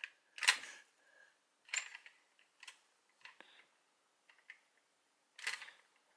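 Scattered light clicks and knocks of a plastic toy Progrise Key being spun and caught in the hand, with about six separate taps, the loudest near the start and near the end.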